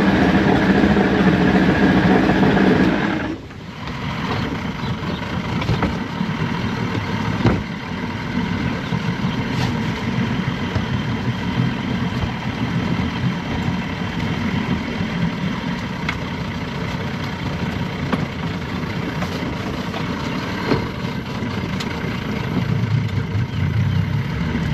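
Evinrude two-stroke outboard running. About three seconds in, its strong steady tone drops away suddenly and it keeps running rougher and quieter: one side of the engine's power packs has quit.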